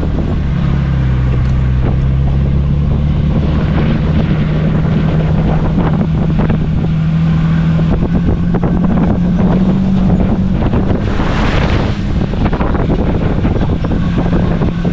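Jeep driving on a backcountry trail: the engine runs steadily under constant tyre and wind noise, with a brief louder rush of noise about eleven seconds in.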